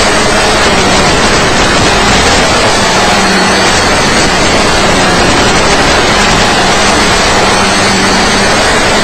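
Tricopter's electric motors and propellers buzzing steadily, their faint pitches wavering as the throttle changes, buried in heavy hiss from the analog FPV video link's audio channel.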